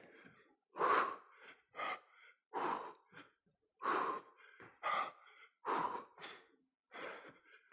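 A man breathing hard during exercise: short, forceful exhales about once a second.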